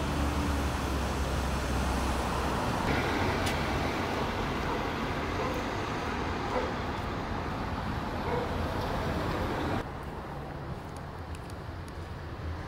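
Street traffic ambience: cars on a town street, with a low steady engine rumble in the first few seconds. The overall sound drops abruptly about ten seconds in.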